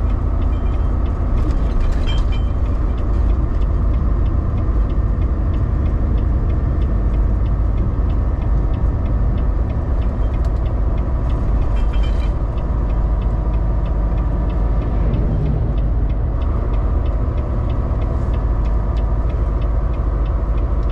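Semi truck's diesel engine running steadily with tyre and road noise, heard from inside the cab while driving along a highway.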